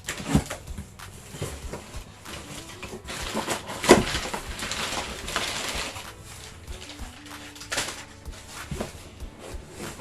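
Parcel packaging being handled and opened: a run of crinkles, rustles and small knocks, with a denser stretch of rustling or tearing about three to six seconds in and a sharp knock about four seconds in.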